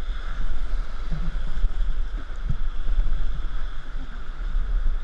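Rushing whitewater of a river rapid, a steady roar of moving water, with wind buffeting the microphone as a low rumble throughout.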